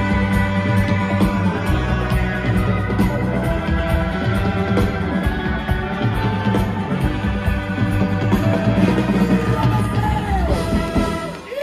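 A rock band playing live over a big outdoor PA: electric guitars, drums with a steady hi-hat, congas, and trumpet and saxophone. The music breaks off just before the end.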